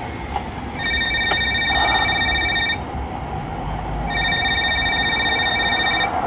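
A phone ringing with a trilling tone: two rings of about two seconds each, a pause of about a second and a half between them, over a low rumble.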